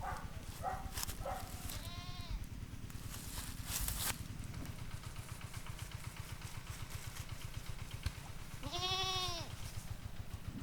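A goat bleats twice, a short call about two seconds in and a longer, wavering one near the end, over a steady low hum.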